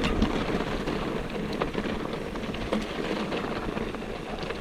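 Mountain bike rolling down a loose dirt trail: steady tyre noise on dirt and gravel with scattered rattling clicks.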